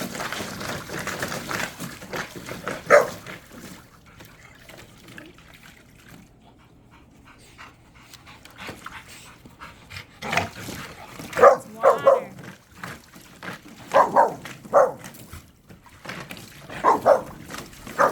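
Dogs barking: a string of short, sharp barks in the second half, coming in small clusters with pauses between.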